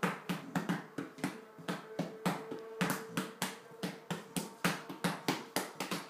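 Hands patting out a drumbeat on a dog's belly: quick, slightly uneven pats, about three or four a second.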